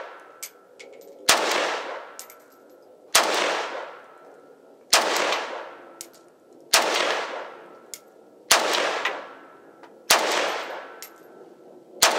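Norinco MAK-90, a Chinese AK-pattern rifle in 7.62×39mm, fired semi-automatically: seven single shots at an even pace of about one every two seconds, each followed by a long echo. Light metallic clinks are heard between the shots.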